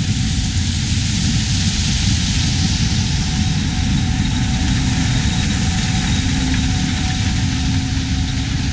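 Gleaner S88 combine with an 8-row corn head running steadily while harvesting corn: a dense engine and machinery rumble with a faint steady whine over it.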